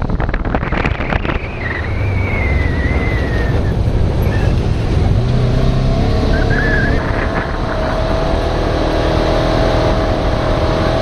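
Side-by-side utility vehicle driving along a gravel road, heard from inside its open cab: a steady engine drone under loud road and tyre noise.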